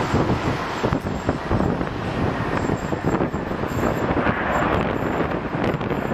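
Distant jet engine noise from a Boeing 737-700's CFM56-7B turbofans as the airliner rolls out along the runway after touchdown, with gusty wind buffeting the microphone.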